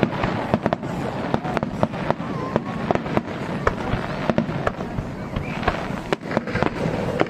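Aerial fireworks bursting in rapid succession: many sharp bangs and crackles, several a second, one after another without a break.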